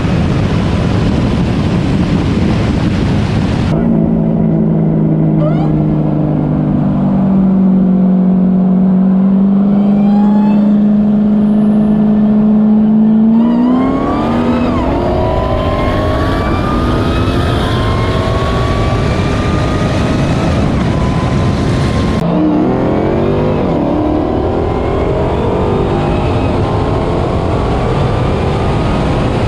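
High-performance car engine pulling hard at full throttle, its pitch climbing through the gears with several upshifts, over wind and road noise. It starts as a steady drone that slowly rises, then about halfway through the climbs get sharp and repeat.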